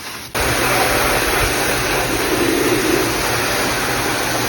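A motor-driven machine running steadily with a loud, even rushing noise and a low hum, starting abruptly about a third of a second in.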